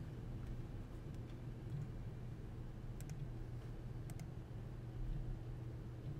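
A few sharp computer mouse clicks, the clearest about three and four seconds in, over a low steady hum of room tone.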